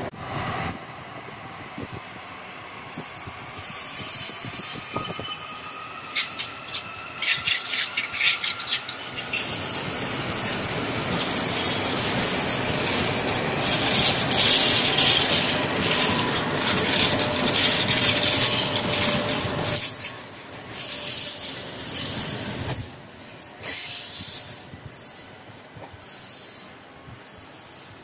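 KTM ETS electric trainset pulling out of the station: a whine rising in pitch as it gathers speed, over wheel and rail noise. The noise is loudest about halfway through and falls away after about twenty seconds.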